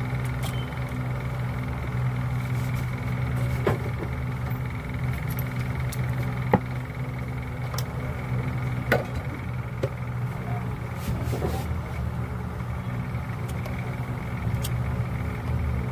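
A steady low mechanical hum, with a few short sharp clicks and taps as circuit boards and tweezers are handled on the rubber bench mat; the loudest click comes about six and a half seconds in.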